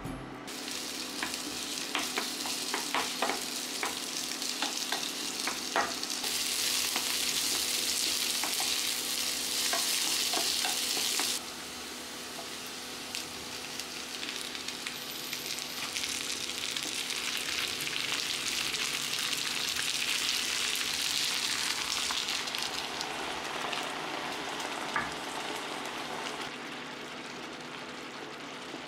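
Onions and rolled short plate beef sizzling and simmering in a small nonstick pan, a steady hiss with light clicks and taps in the first few seconds. A louder stretch of sizzling cuts off suddenly about eleven seconds in.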